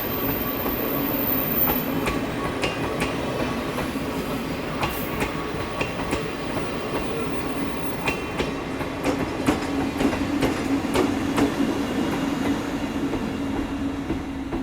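Train running on the rails, its wheels clicking irregularly over rail joints above a steady hum.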